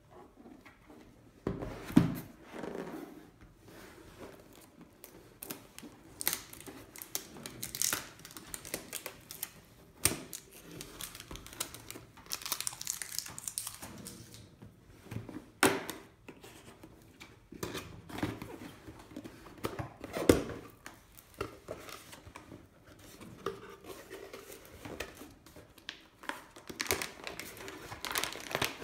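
Unboxing handling noise: a cardboard hard-drive box is knocked and slid against a wooden table and opened, with tearing and rustling of packaging. Near the end comes the crinkling of the plastic air-cushion wrap around the drive. There are several sharp knocks among the rustling, the loudest about two seconds in and about twenty seconds in.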